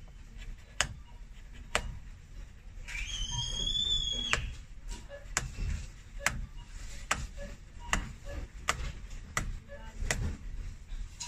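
Sharp clicks, roughly one a second, as cobbler's nippers snip and pull the old welt stitching from a leather dress shoe. A high squeak lasts about a second and a half some three seconds in.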